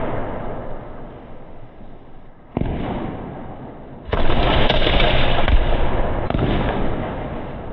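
60-shot skyshot aerial firework cake firing, its shells bursting in the sky. Sudden bangs come about two and a half, four and six seconds in, each dying away over a second or more.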